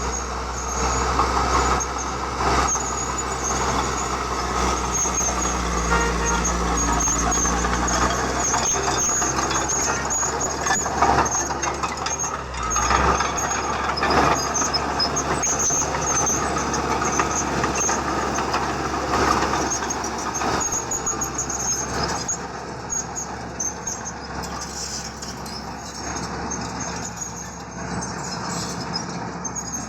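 Heavy diesel construction machinery working: a steady engine rumble with repeated metal knocks and clanks, and a thin high squeal that comes and goes. The low rumble eases about halfway through.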